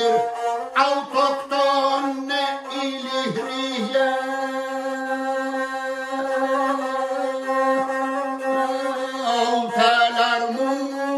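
Lahuta, the Albanian single-string bowed fiddle, played with a man singing a lahuta song over it in long, held notes that waver near the end.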